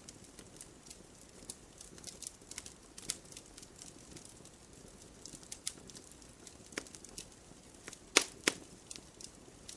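Wood campfire burning and crackling, with irregular sharp pops and snaps over a faint low rumble of flame; the two loudest pops come close together near the end.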